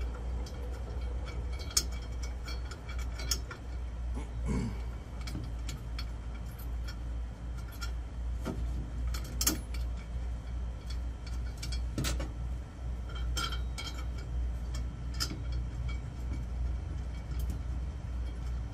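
Small metal bolts clicking and clinking against the tubular metal legs and bracket of a patio table as they are handled and threaded in by hand: scattered light taps and clinks at irregular times, over a steady low hum.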